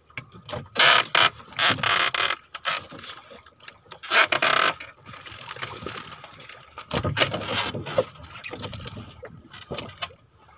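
Crinkling and rustling of a thin plastic raincoat being pulled on and handled close up, in irregular bursts, with a few knocks about seven to eight seconds in.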